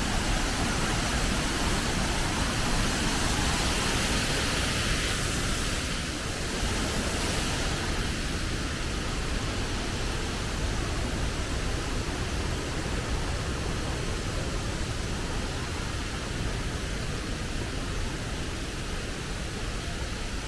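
Waterfall: heavy falling water making a steady, even rush. The hiss eases a little after about seven seconds.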